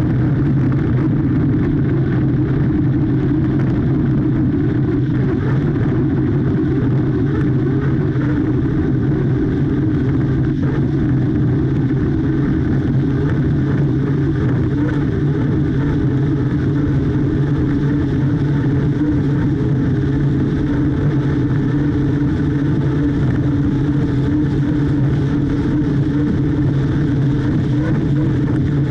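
Unlimited hydroplane Miss HomeStreet's turbine engine running flat out at racing speed, a steady drone mixed with rushing water and wind, heard from on board the boat.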